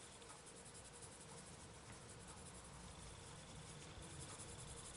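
Faint scratching of a coloured pencil shading on paper in a run of quick, light strokes.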